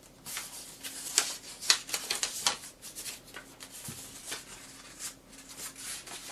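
Sheet of origami paper crinkling and rustling in the hands as it is worked along its creases, with an irregular run of sharp crackles, the sharpest in the first few seconds.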